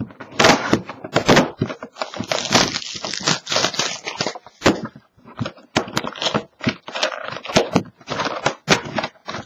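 Clear plastic shrink-wrap being torn and pulled off a cardboard trading-card box, crinkling and crackling in dense, irregular bursts, with the box being handled.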